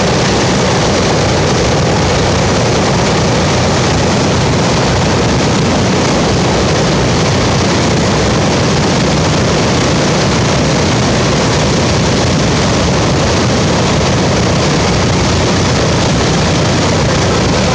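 The four Wright R-1820 Cyclone nine-cylinder radial engines of a B-17 Flying Fortress running steadily at idle on the ground before taxi, loud and unchanging.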